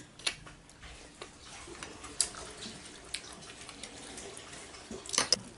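Spoon clinking and scraping in a bowl of bakso meatball soup, with faint sloshing of the broth. Light clicks come every second or so, and a louder cluster comes near the end.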